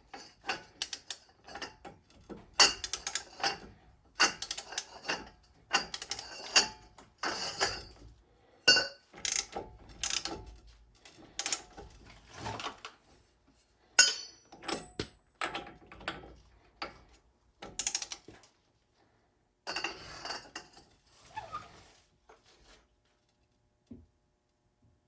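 Ratcheting torque wrench working the front axle nut while its torque is checked: runs of quick ratchet clicks with short pauses between them, stopping about three-quarters of the way through.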